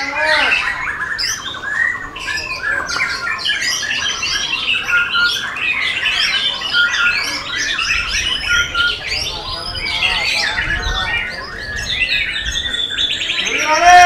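White-rumped shama (murai batu) singing a loud, fast, varied song of rapid whistles and harsh chattering notes, with a quick rattling trill near the end.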